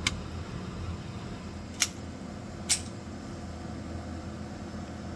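Three single shots from a .22LR Beretta 92FS pistol fired one-handed: sharp cracks, the first two about 1.7 s apart and the third about a second later.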